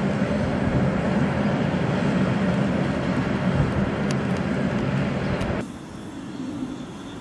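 Steady rumble of a train running on the tracks, which cuts off abruptly about five and a half seconds in. After that comes the quieter running of an ET22 electric locomotive approaching slowly.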